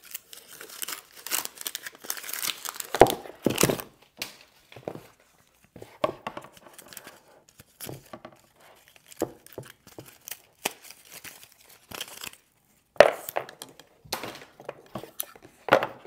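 Packaging being unwrapped by hand: protective wrap peeled and torn, crinkling densely for the first few seconds. After that come scattered rustles and a few sharp knocks of cardboard packaging parts being handled.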